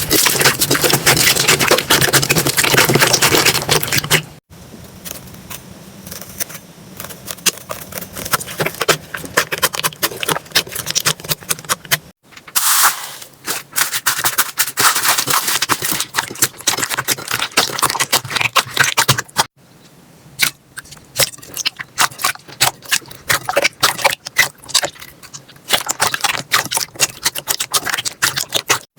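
Slime being squeezed and poked by hand: dense, sticky clicking and crackling. The sound changes abruptly three times as one clip cuts to the next.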